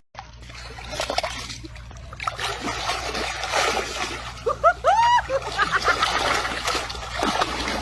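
Water splashing and sloshing, with a few short, high, arched calls about five seconds in.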